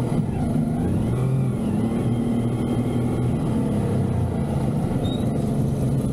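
Kawasaki S2A motorcycle's 350 cc two-stroke triple engine running at low revs while the bike rolls slowly, its note holding steady with small rises and falls in pitch.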